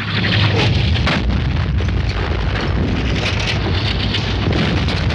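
Dense, continuous battle noise: rapid gunfire crackling over a heavy low rumble of shellfire.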